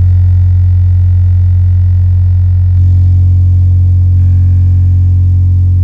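Belva 12-inch subwoofer playing a steady 45 Hz test tone: a loud, continuous low hum with a stack of overtones above it. It gets a little louder about three seconds in.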